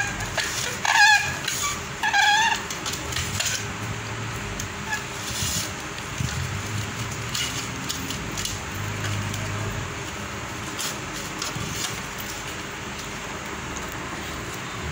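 A toddler gives three short, high, wavering squeals in the first two and a half seconds. After that there is a steady low hum with a few faint clicks.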